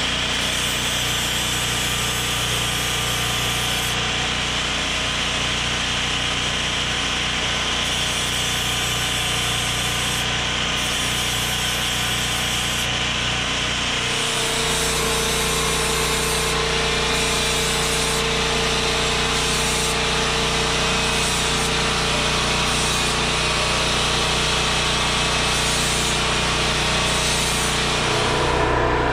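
Electric angle grinder grinding a steel knife blade clamped in a vise, with a small portable gasoline generator running alongside to power it. The noise is steady, shifting in tone about halfway through.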